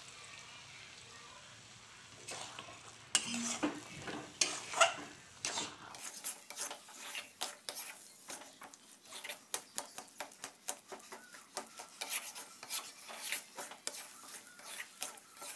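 Spatula scraping and clacking against a kadai as thick cooked taro leaves are stirred and mashed, in quick irregular strokes that turn fast and dense about six seconds in.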